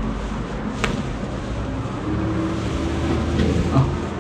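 A spinal joint cracking once about a second in during a chiropractic adjustment: a single sharp pop, with fainter clicks near the end, over a steady low rumble.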